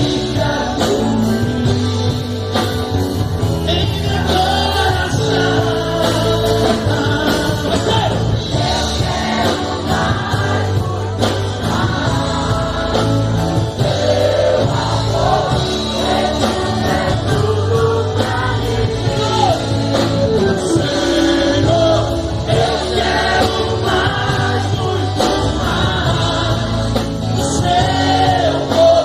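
Christian worship song performed live: a man singing, accompanied by acoustic guitar, over a steady bass line and beat.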